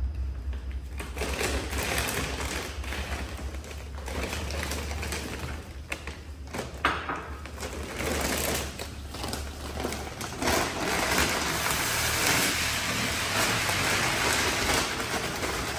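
Large plastic rice bag crinkling and rustling as it is handled and opened, then a steady rush of dry rice grains pouring from the bag into a plastic bucket through the last five seconds or so.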